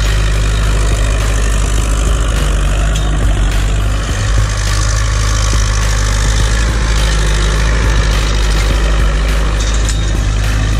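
Zetor 6911 tractor's four-cylinder diesel engine running steadily under load while it pulls an offset disc harrow through ploughed soil.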